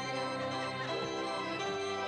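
A 78-key carousel organ from 1910 Germany playing a tune: held notes changing in pitch over a steady bass line.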